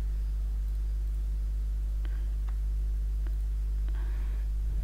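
Steady low electrical mains hum on the recording, with a few faint clicks.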